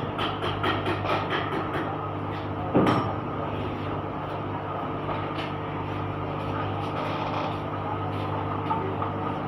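An engine running steadily at an even speed, with a single sharp clank about three seconds in.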